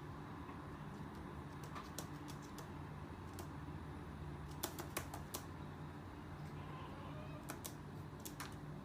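Irregular sharp taps and clicks, a bird's beak and claws on a windowsill, over a low steady hum. They come in small clusters, a few at a time.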